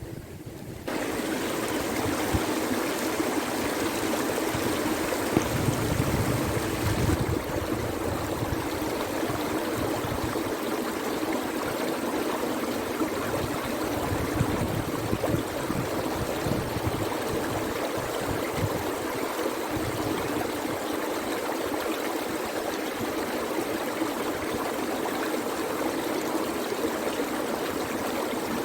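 Steady rush of a river running in flood, starting suddenly about a second in.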